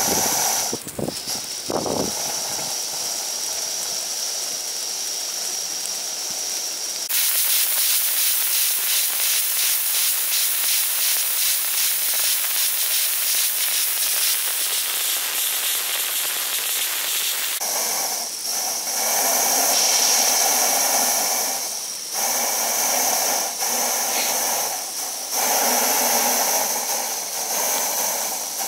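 Steam hissing from an Accucraft/G1MRCO live-steam model BR Class 7 Britannia locomotive raising pressure with its blower on. The hiss gets louder and fuller about seven seconds in and changes again around eighteen seconds. A few clicks near the start as the cab controls are handled.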